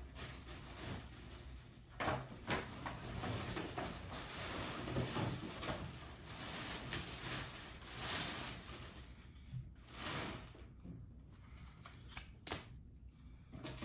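Rustling and handling noises of merchandise being moved about on a tabletop, with a few sharp knocks; the rustling dies down about eleven seconds in.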